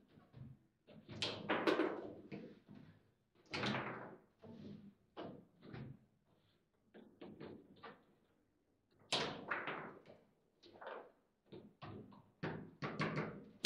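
Table football (foosball) in play: irregular knocks and sharp cracks as the ball is struck by the rod figures and hits the table, with several louder hits about a second in, near 3.5 s and about 9 s in.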